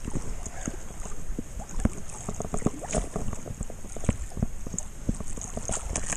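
Water lapping and slapping irregularly against a small craft on the river, many short knocks a second at uneven spacing, over a steady high hiss.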